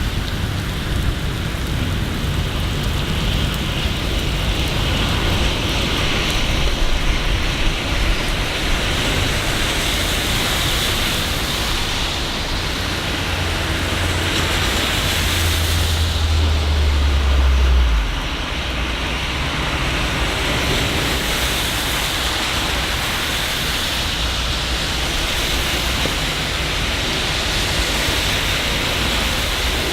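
Steady city rain, a continuous hiss of rainfall. Under it runs a low rumble that swells about halfway through and cuts off suddenly.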